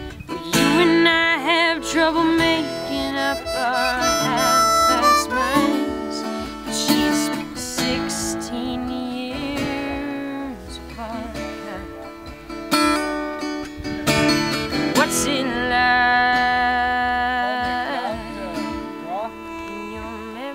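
Harmonica solo over acoustic guitar accompaniment, the harmonica's notes wavering and bending.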